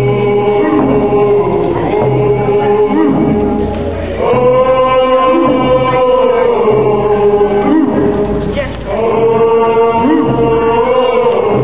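Nisga'a dance song: a group of voices chanting together on long held notes, the melody stepping up to a higher note about four seconds in, with hide hand drums beating along at a slow, steady pace.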